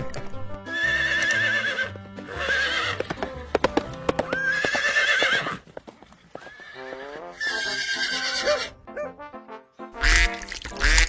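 Horse neighing: about five whinnies, each a high, quavering call of about a second, one after another, over background music.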